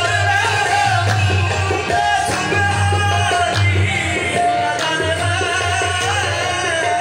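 Qawwali performance: male voices singing, led by one singer, over harmonium and tabla.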